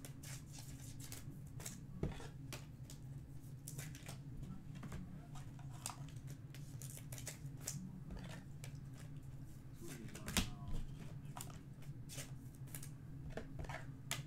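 Faint clicks and rustles of trading cards, plastic card holders and pack wrappers being handled, irregular and scattered, with a sharper click about ten seconds in, over a low steady hum.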